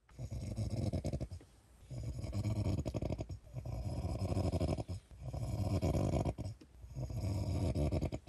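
A sleeping person snoring: about five long snores in a steady rhythm, each lasting over a second.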